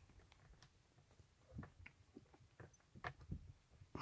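Near silence: room tone with a few faint, scattered clicks and taps.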